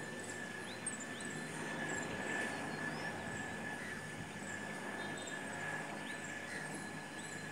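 Steady distant drone of a formation of Bell 212 and Bell 412 helicopters flying overhead, with a thin continuous whine over a low hum. Short, high bird chirps recur above it.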